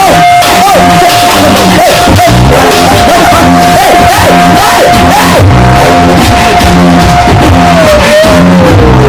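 Loud rock-style music with a steady beat and shouted singing, over a single high held tone that slides down in pitch near the end.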